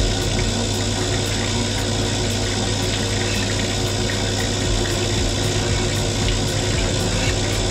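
Cylinder honing machine's coolant system running: a steady pump hum with coolant pouring and splashing in the tank, unbroken throughout. Faint high ticks recur about twice a second.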